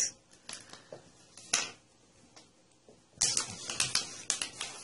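Cables, a power plug and crocodile-clip leads being handled and set down on a table: scattered light clicks and taps, then a quick run of sharper clicks about three seconds in.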